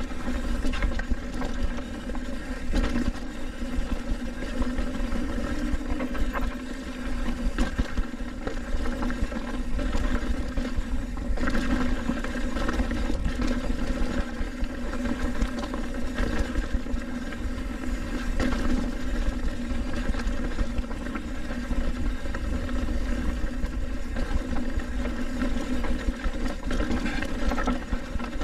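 Trek Roscoe 8 hardtail mountain bike rolling fast down a rocky dirt trail: continuous tyre rumble and a steady hum, broken by frequent knocks and rattles as it hits rocks.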